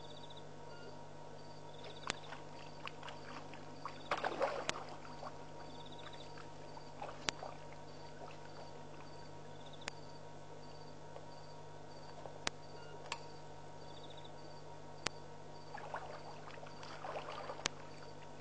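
Water splashing and sloshing at a waterhole as elephants drink and move in it, in two spells, about four seconds in and again near the end. Under it a steady low hum, a high chirp repeating over and over, and a sharp click about every two and a half seconds.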